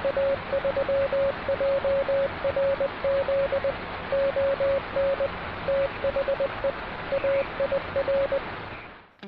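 Morse code (CW) tones keyed in dots and dashes over steady radio static hiss. The keying stops about a second before the static cuts off abruptly near the end.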